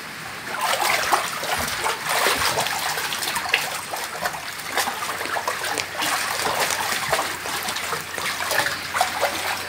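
Pool water splashing and sloshing as children paddle and move through it, a continuous run of irregular splashes starting about half a second in.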